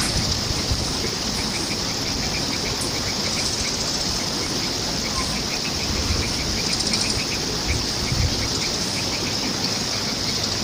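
Flowing water rushing steadily, with a constant high hiss and many short, quick chirps repeating throughout.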